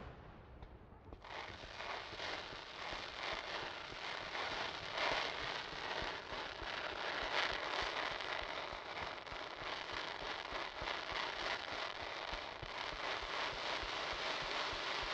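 Fireworks: ground-level fountains and low comets hissing and crackling densely and without a break, starting about a second in, with no big shell bursts.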